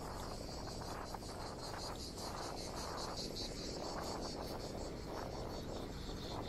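Insects chirping in a steady, rapidly pulsing high-pitched chorus, over a low rushing noise that swells and fades every second or so.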